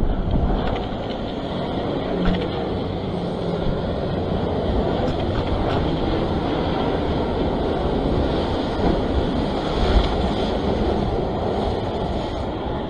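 Surf washing against a rock ledge mixed with wind buffeting the microphone: a steady, low, noisy rumble.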